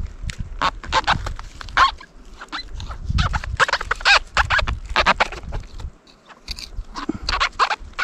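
Knife cutting a cluster of wild oyster mushrooms off a tree: a run of irregular crunching clicks with short squeaks from the mushroom flesh, pausing briefly near the end.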